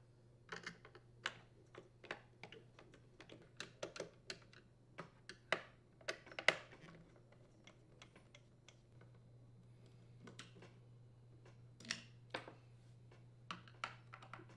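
Irregular light clicks and taps of a Torx screwdriver working screws out of a string trimmer's plastic engine housing, with the hard plastic housing and small screws being handled. The clicks come thick and fast for the first several seconds, then fall to a few scattered taps.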